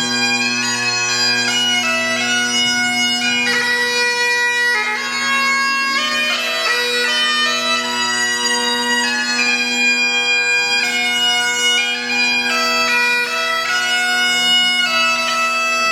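Bagpipes playing a tune, the melody notes moving over a continuous steady drone.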